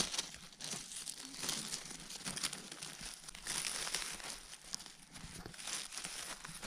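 Dry fallen leaves and twigs crackling and rustling as a hand pushes aside forest-floor litter, a dense run of small irregular crackles.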